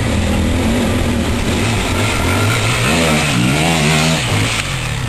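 Enduro motorcycle engine working hard on a steep, rough climb, its pitch swinging up and down in quick revs in the second half.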